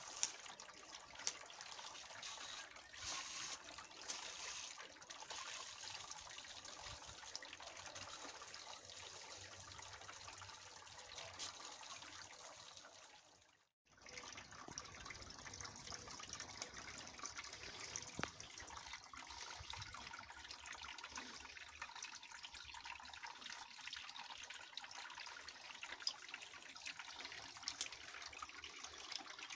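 Garden hose with a spray nozzle watering soil in planters: a steady spray and splash of water. It cuts out briefly about halfway through, and a steady trickle of water follows.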